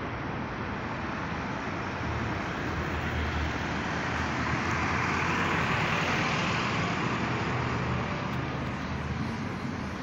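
Street traffic: a car passes close by, its engine and tyre noise swelling to a peak in the middle and fading again over a few seconds, over a steady hum of traffic.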